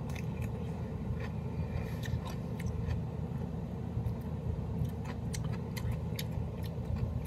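A person chewing a raw barrel-fermented dill pickle: irregular small crunches and wet mouth clicks over a steady low background hum.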